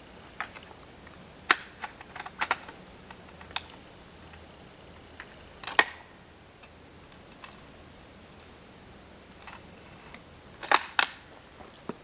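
Scattered sharp clicks and knocks of handling noise, about a dozen at uneven spacing, with the loudest about a second and a half in, near the middle and a quick pair near the end.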